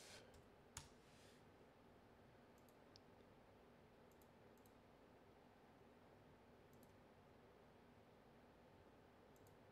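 Near silence: room tone, with one sharp computer-keyboard click about a second in and a few faint clicks after it.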